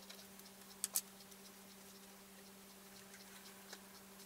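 Quiet room tone: a faint, steady low hum with scattered light ticks, and two sharp clicks close together about a second in.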